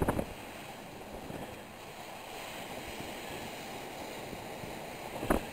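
Ocean surf breaking on a rocky shore, a steady rushing wash of waves, with wind on the microphone. A brief bump on the microphone at the start and again near the end.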